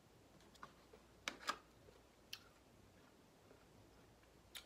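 Near silence broken by a handful of light clicks and taps from chopsticks and a plastic takeout container being handled, the two loudest close together about a second and a half in.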